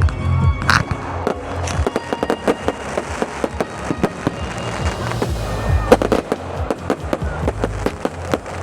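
Fireworks display: a dense string of crackling bangs, several a second, with the sharpest bang about six seconds in, over background music.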